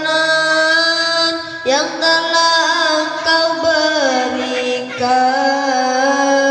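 A child's voice chanting a syair, a Malay-Indonesian sung poem, in long held notes that glide and bend between pitches, with fresh phrases starting about two seconds in and again near the five-second mark.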